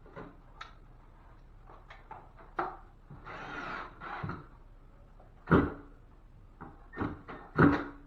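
Knocks and bumps of drywall work being handled. There are scattered light taps, a rough noise lasting about a second in the middle, and two louder thumps in the last few seconds.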